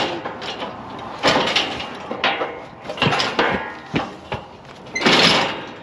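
Steel Tarter squeeze chute clanking and banging several times as a calf shifts and pushes inside it, the loudest bang about five seconds in.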